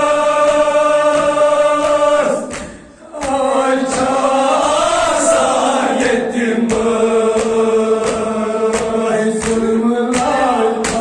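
A group of voices chanting a Kashmiri noha, a Muharram lament, in unison on long drawn-out notes, with a brief break about two and a half seconds in. Sharp beats sound about twice a second under the chant.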